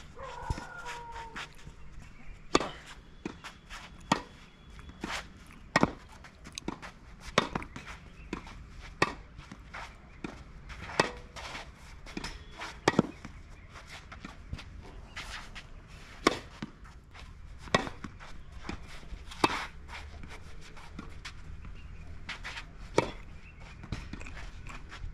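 Tennis racket strings striking the ball in volley practice: about a dozen sharp pocks, one every second and a half to two seconds, with fainter knocks between.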